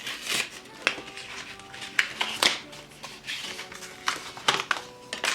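Handling of a mini wireless keyboard and its packaging: irregular sharp clicks and short rustles, over soft background music.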